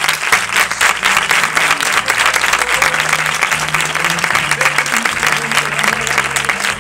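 Audience applauding steadily, with music of low held notes playing underneath.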